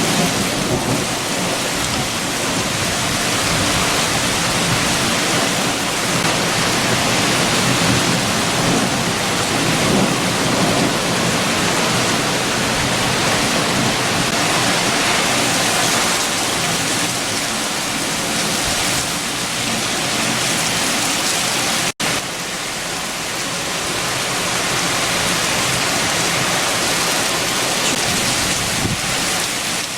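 Heavy rain with strong wind, a steady dense rush. It drops out for an instant about two-thirds of the way through, then carries on.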